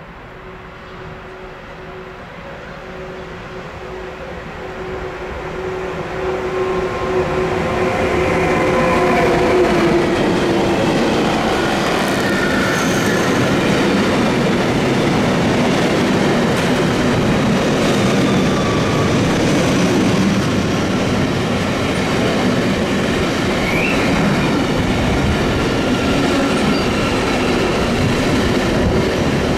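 Freight train approaching and passing close by. Its running noise grows steadily over about ten seconds, with a hum from the locomotive that strengthens and fades. A steady, loud rumble and clatter of passing wagons follows.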